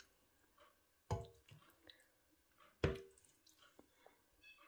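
A spoon knocking twice, about a second in and again near three seconds, each knock with a short ring, as a thick wet curry is spooned onto a ceramic plate, with small soft wet sounds between the knocks.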